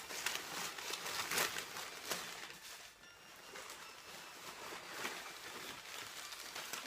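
Packing paper and bubble wrap rustling and crinkling in short scattered bursts while a pair of shoes is unpacked from their box, with a quieter stretch around the middle.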